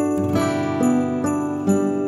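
Background music: a melody of struck, bell-like notes over held chords, moving at a steady pace of a little over two notes a second.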